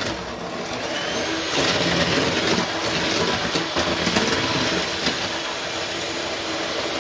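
Electric hand mixer running steadily, its beaters whisking eggs, sugar and milk into cake batter in a bowl.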